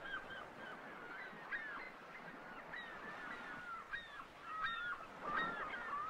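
A flock of birds calling over each other: many short, quick calls that overlap throughout.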